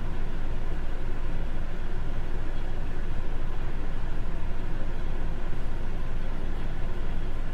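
Steady low rumble with a hiss above it, an unchanging background noise with no distinct events.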